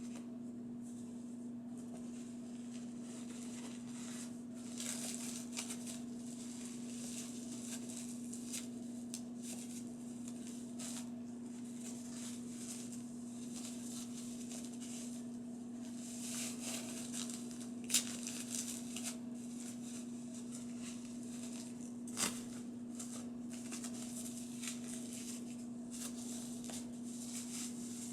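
Soft rustling and handling noises from hands working with a small doll and its things, with two sharp clicks in the second half, over a steady low hum.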